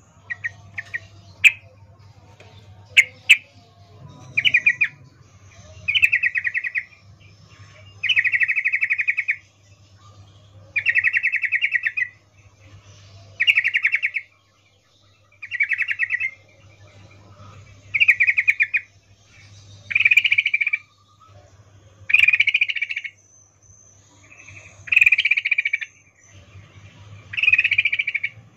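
Yellow-vented bulbul (trucukan) calling: a few sharp chirps at first, then a regular run of chattering trills, each about a second long and repeated every two seconds or so, over a low steady hum. It is billed as a female's breeding call, used as a lure to set males singing.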